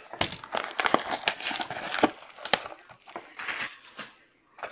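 Plastic shrink wrap being torn and crinkled off a sealed Panini Plates & Patches trading-card box: a run of irregular crackling rustles and sharp snaps that stops about four seconds in.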